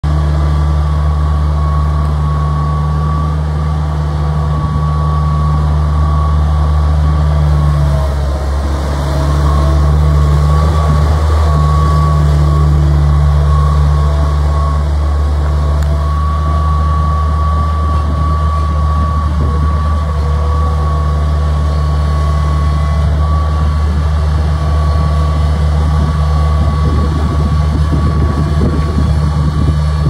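Bobcat 645 skid steer loader's engine running steadily as the machine is driven and turned, with a thin steady whine over the engine note. The sound dips briefly about eight seconds in, then runs a little louder for a few seconds.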